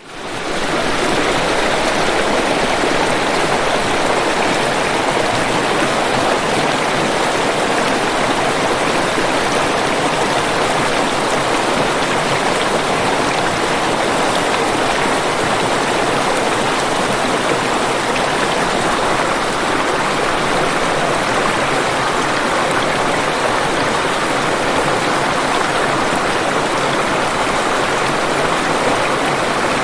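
Waterfall: a steady, even rush of falling water that fades in from silence over about a second at the start, then holds level.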